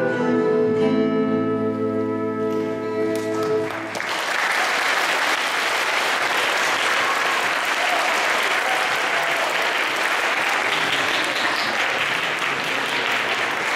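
Music ending on a held chord. About four seconds in, an audience breaks into applause that continues for about ten seconds.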